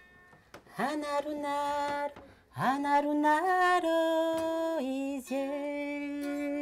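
A woman singing solo in slow, long held notes, each phrase scooping up into its first note. Three phrases, the first starting about a second in.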